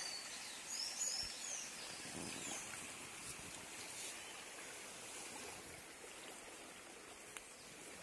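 Steady rush of a river in flood, running high and fast after heavy rain. Small birds chirp high over it in the first couple of seconds.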